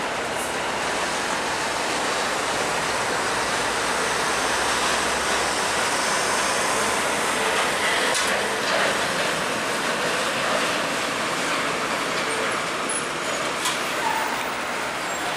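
FAW JH6 tractor-trailer rolling slowly past close by: a steady rushing noise of engine and tyres.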